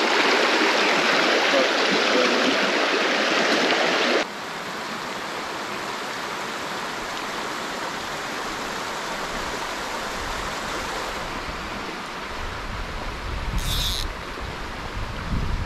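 Small mountain trout creek rushing and splashing over rocks in a steady hiss. About four seconds in it drops suddenly to a softer, more distant rush. Near the end a low rumble of wind on the microphone joins it.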